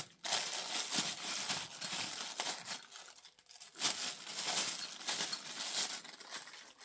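Plastic packaging crinkling and rustling in irregular bursts as an accessory is unwrapped by hand.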